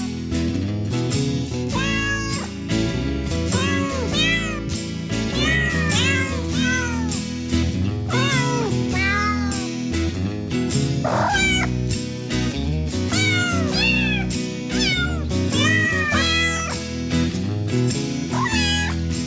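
Cat meows, many short calls each rising and then falling in pitch, coming one after another over background music with a steady bass line.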